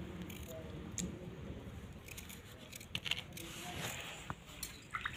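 Low background noise with a few scattered faint clicks and light knocks.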